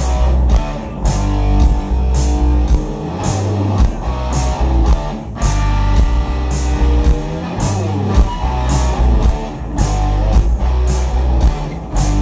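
Live band playing an instrumental passage: electric guitar over bass and drums, with a steady beat of about two strikes a second.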